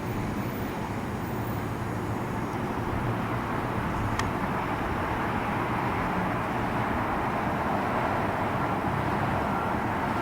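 Steady rushing engine noise of a distant aircraft, slowly growing louder.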